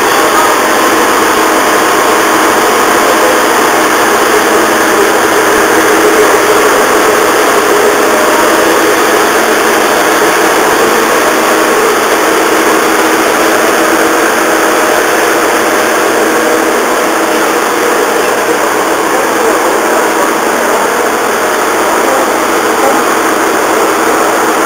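HB-E300 diesel-hybrid railcar standing at the platform with its diesel generator engine and cooling fans running, a steady, unchanging drone.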